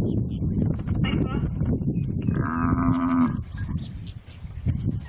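An African buffalo bellows once about halfway through, a drawn-out moan held at one pitch, as hyenas eat it alive: the distress call of the dying animal. A steady low rumble runs underneath.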